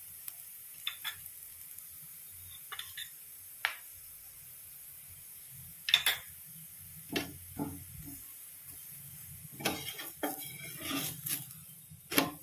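Metal spoon and spatula clinking and scraping on a tawa in scattered sharp strokes, the loudest about six seconds in and a quick cluster near the end as the methi paratha is turned over. Under them, a faint steady sizzle of the paratha frying in oil.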